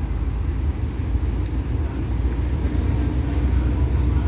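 Alsthom diesel-electric locomotive approaching with a ballast train: a steady low engine rumble that slowly grows louder, joined by a faint steady hum in the last second or so.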